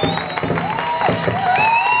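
Music playing under a crowd cheering, with long, high, held whoops rising over it.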